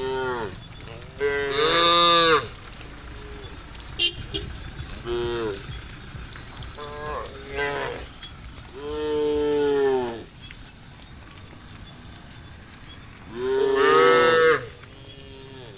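Cattle mooing: about six separate moos from several cows, each rising and falling in pitch, the loudest about two seconds in and near the end.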